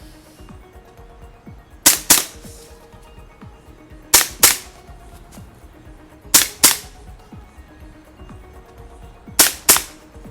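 WE Beretta M9A1 gas blowback airsoft pistol firing in double taps: four pairs of quick shots, a pair every two to three seconds. Quiet background music runs underneath.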